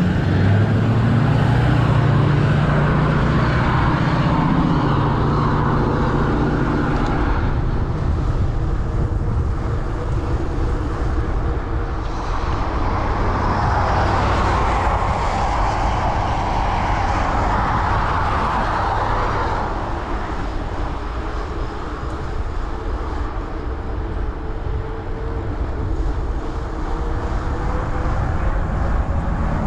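Wind and road noise while riding a bicycle, picked up by a chest-mounted action camera's microphone. A motor vehicle's engine passes in the first several seconds, its pitch rising.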